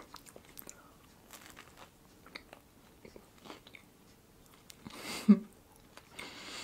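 Close-miked chewing of a soft sweet yeast bun: small wet mouth clicks and light crackles. There is a brief hum about five seconds in and a soft hiss near the end.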